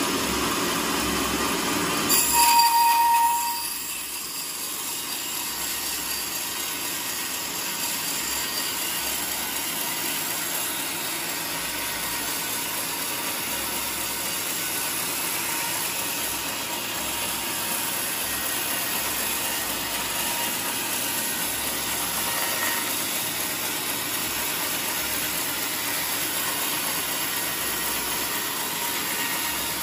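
Horizontal bandsaw mill cutting through a teak log. About two seconds in there is a brief, loud, high squeal; after that the blade runs steadily through the wood with a faint whine.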